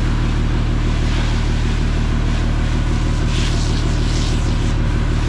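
Fire truck's engine and pump running steadily, with the hiss and splatter of a fire hose spraying water onto a pickup truck.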